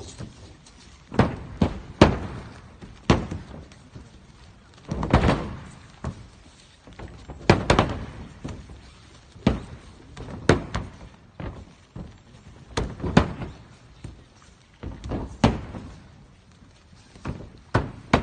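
Repeated thuds and slaps of aikido breakfalls: partners thrown and landing on the padded mats, irregularly every second or two, some falls landing as a quick double thud.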